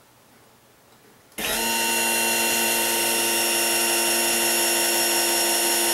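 12-volt Firgelli linear actuator's motor whining steadily as it extends and pushes the transfer-table drawer out, starting abruptly about a second and a half in.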